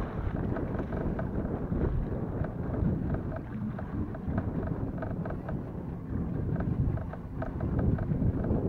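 Wind buffeting the microphone in a steady low rumble, with many faint rapid ticks running through it.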